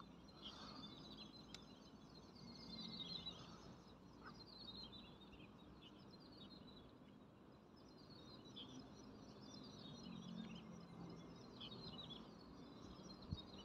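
Faint birdsong: many small chirps and quick trills from birds around a pond, over a low outdoor background hum, with one sharp click near the end.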